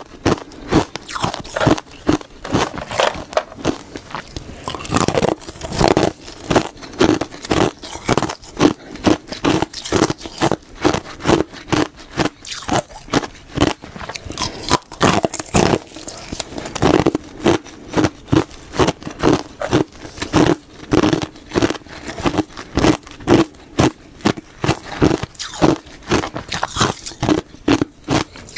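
Ice being bitten and chewed close to the microphone: a continuous run of crisp, crackling crunches, about two a second.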